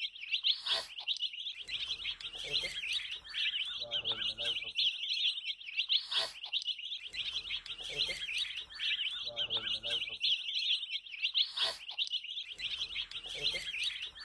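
Baby chicks peeping continuously, many high cheeps overlapping without a break.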